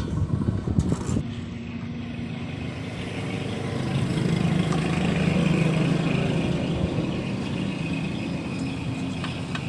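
A few sharp knocks, then a motor running steadily, swelling a few seconds in and easing off toward the end.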